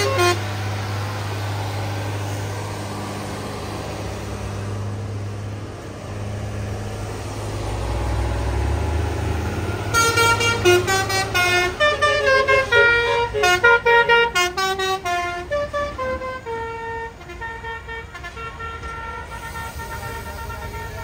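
A heavy truck engine runs low and steady, then about ten seconds in a multi-tone musical vehicle horn plays a run of notes stepping up and down in pitch for most of the rest.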